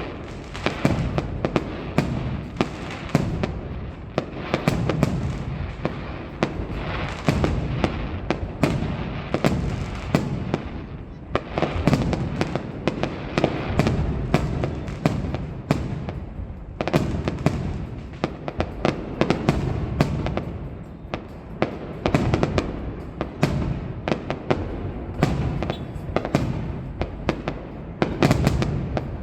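Aerial fireworks display: a dense, continuous barrage of shell bursts, sharp bangs and crackles following one another in quick succession over a heavy low rumble.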